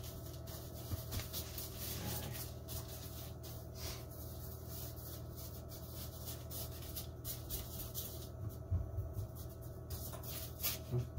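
Parchment paper rustling and scratching as hands press and shape pizza dough on it, in many short, scattered strokes over a steady low hum.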